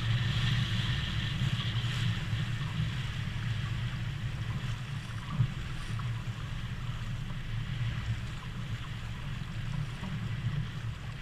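Wind buffeting the microphone over the rush of water along the hull of a Contessa 28 sailboat under sail, heeled and making way. A single short knock about five seconds in.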